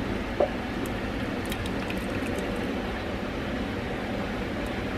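Thick sauce with diced onion poured from a metal bowl onto raw chicken in a stainless steel Instant Pot inner pot, a steady pour with a light knock about half a second in.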